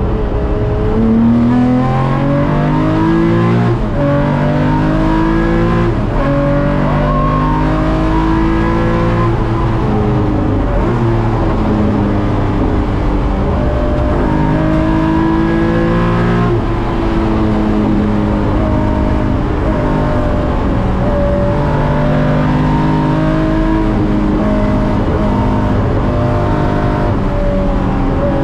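Racing Nissan Fairlady Z (S30) with a 3.1 L L28 straight-six on Solex carburettors and an 80 mm exhaust, heard from inside the cabin at race pace. The engine's pitch climbs and drops several times as it accelerates, shifts gears and lifts for corners.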